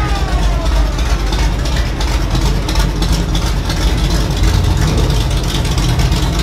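Steady low rumble of classic car engines idling as a muscle car and a T-bucket hot rod roll slowly past. A falling pitched tone fades out in the first second.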